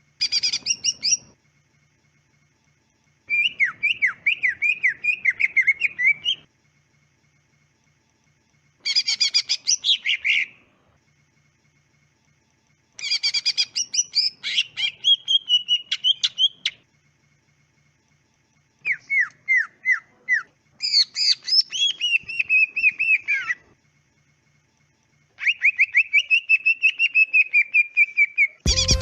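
Green leafbird (cucak ijo) singing in bursts of rapid, repeated sweeping whistled notes, about six phrases with short pauses between them.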